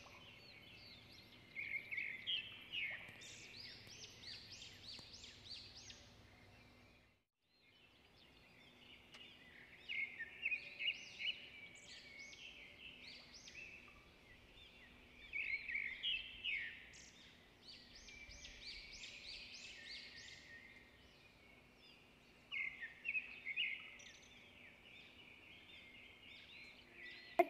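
Small birds chirping in clusters every few seconds, with quick sweeping high calls. The sound drops out completely for about a second, some seven seconds in.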